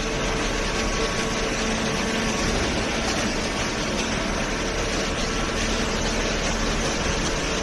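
Cardboard baler's electric motor and hydraulic pump running steadily, a constant mechanical hum over even machine noise.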